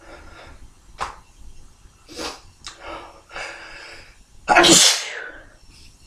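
A man's tickle-induced sneezing: several short breathy bursts lead up to one forceful sneeze about four and a half seconds in, by far the loudest sound.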